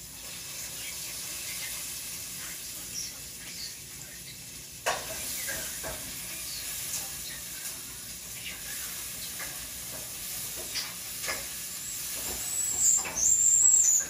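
European starling singing: a string of clicks and short high whistles over a faint hiss, with a burst of loud, high whistled notes near the end.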